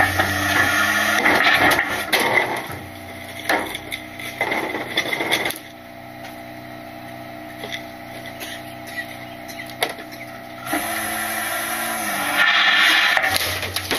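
Load Master Legacy rear-loader garbage truck compacting trash in its hopper: loud cracking and crunching as the load is crushed, then a steadier hum of the engine and hydraulics for several seconds. The noise builds up again near the end.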